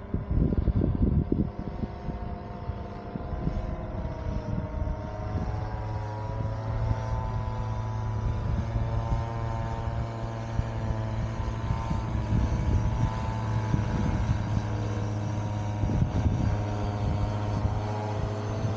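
Paramotor engine and propeller running steadily overhead, its pitch wavering slightly. Wind buffets the microphone in the first couple of seconds and again near the end.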